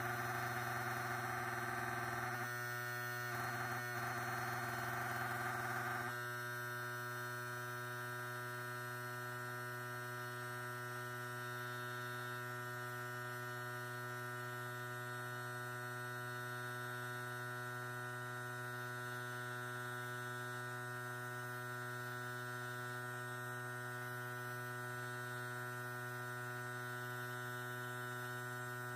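Electric motor running at a steady speed with a steady hum, likely driving the magnet rotor of an eddy-current water heater. For the first six seconds a rougher, buzzier layer rides on top, then the plain steady hum continues.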